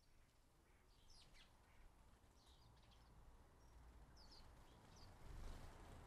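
House sparrows chirping faintly: short high chirps every second or so over a quiet outdoor hiss. A low rumble swells about five seconds in.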